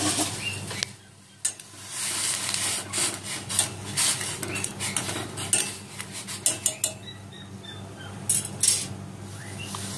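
A long utensil stirring boiling pasta in a stainless steel pot, with repeated irregular knocks and clinks against the pot's side over the bubbling water. A steady low hum runs underneath, and it goes briefly quieter about a second in.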